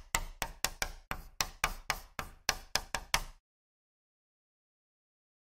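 A quick, uneven run of about fifteen sharp taps or clicks over three and a half seconds, each dying away fast, stopping suddenly.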